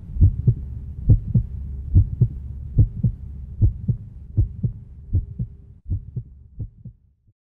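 Heartbeat sound effect: paired low thumps, a little more than one beat a second, over a steady low drone, fading out about seven seconds in.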